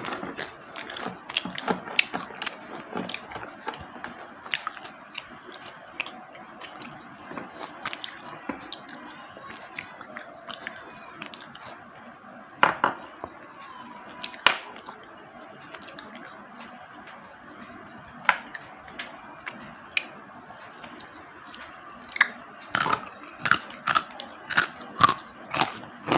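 Slate pencils being bitten and chewed: crisp, brittle crunching and snapping. It is dense at first, thins to a few sharp snaps through the middle, then turns into a quick run of loud crunches about two a second near the end.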